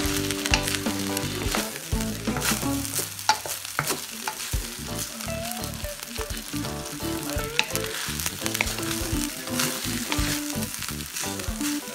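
Fried rice with chicken and shrimp sizzling in a wok while a wooden spatula stirs and tosses it, scraping and tapping against the pan many times. Background music with held notes plays underneath.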